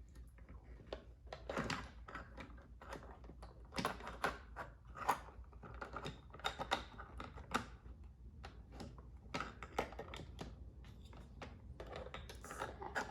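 Light, irregular clicking and tapping of small plastic toy kitchen pieces being handled and set down.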